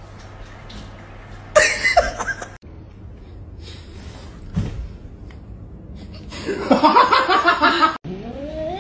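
A person laughing, first in a short burst and later in a longer choppy stretch. Near the end a cat's meow begins, rising in pitch.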